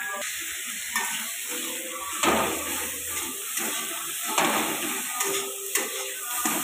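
Steel spatula scraping and knocking against a metal kadai, a stroke every second or so, while onions, tomatoes and spices sizzle in oil. The masala is being sautéed (kosha).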